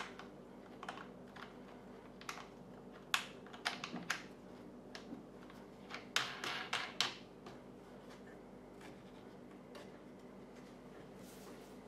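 Hard plastic clicking and tapping as a Kydex cheek rest is handled and fitted onto a Savage Accustock rifle stock. The clicks are irregular, with a quick cluster about six to seven seconds in.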